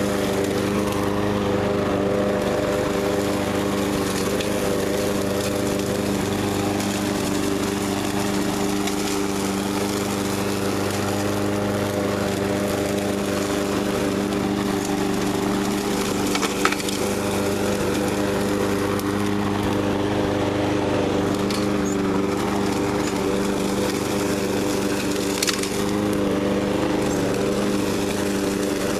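Troy-Bilt TB360 walk-behind lawn mower running steadily while side-discharging, its blade chopping through dry leaves, pine cones and twigs, with a couple of sharp ticks about halfway through and near the end.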